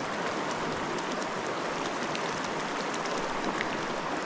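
Creek water running over rocks: a steady, even rush with scattered small splashes.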